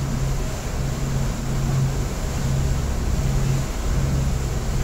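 Passenger ferry's engines running steadily underway, a constant low drone with an even rush of water and air noise over it.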